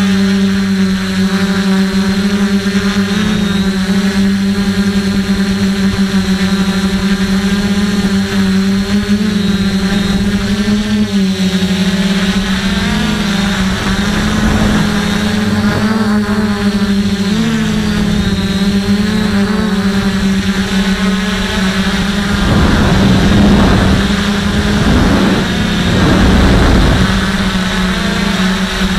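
DJI F450 quadcopter's electric motors and propellers droning steadily, heard from the camera mounted on the frame; the pitch wavers slightly now and then. Near the end, a couple of rushes of low rumbling noise swell over the drone.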